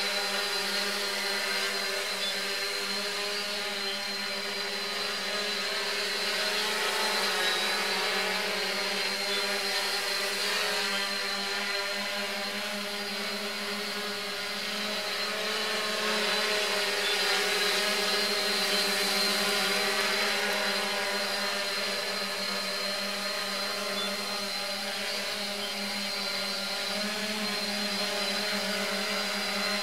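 3DR Solo quadcopter's electric motors and propellers whirring steadily as it hovers and manoeuvres, the pitch wavering slightly and the sound swelling and easing as it moves.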